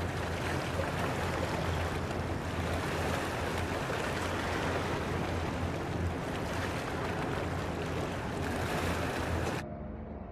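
River water washing along the shore, with wind, as a steady rushing hiss over a low rumble. It cuts off abruptly near the end.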